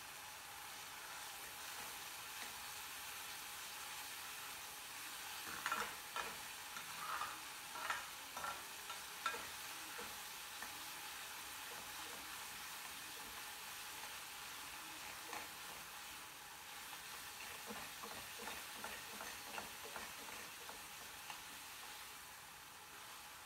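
Chopped tomatoes and onions sizzling in a steel kadai, with a spatula scraping and tapping against the pan as it is stirred, in two spells starting about five and fifteen seconds in.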